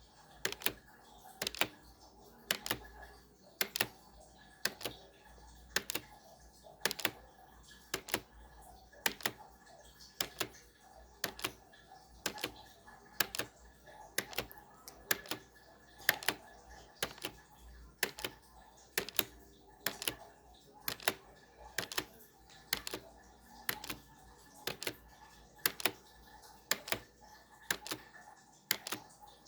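Timer ticking about once a second, each tick a sharp click, often doubled, over a faint steady hum.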